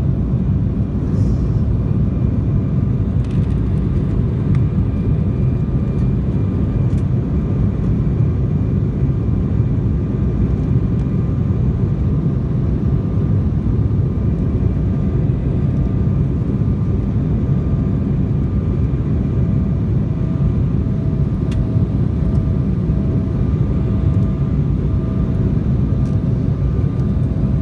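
Steady low rumble inside the cabin of an Embraer 175 regional jet, its GE CF34 turbofans running at an even power with a faint steady whine above the rumble; no spool-up.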